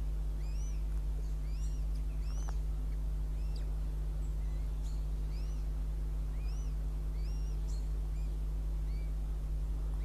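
Northern goshawk chicks begging while being fed: thin, high peeping calls, each note rising and falling, repeated about once or twice a second. A steady low electrical hum runs underneath.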